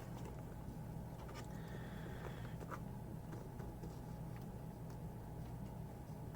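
A few light clicks from a spudger prying up the edge of a phone screen. A faint steady low hum runs underneath.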